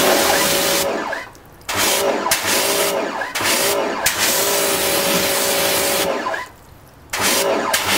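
Pressure washer rinsing a car panel: water spray hissing with the washer's motor humming, cutting out and starting again twice as the trigger is released and pulled.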